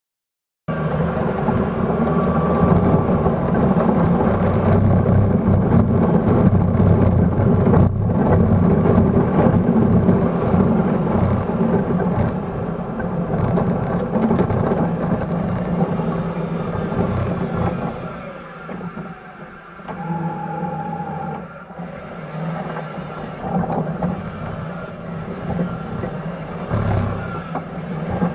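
Engine of a 1996 Suzuki Carry mini truck running under load as it drives through snow pushing a front plow, with tyre and snow noise close to the wheel. It starts suddenly just under a second in and eases off to a lower, more uneven level about two-thirds of the way through.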